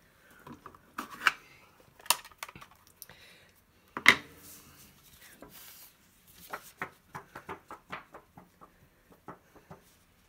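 Handling of stamping supplies on a craft desk: clicks and knocks as the plastic ink pad is closed and the stamped cardstock is picked up. The loudest is a sharp click about four seconds in, followed by a run of quick light clicks.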